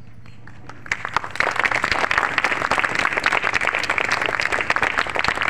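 Crowd applauding: the clapping starts about a second in, grows louder, and then keeps up steadily.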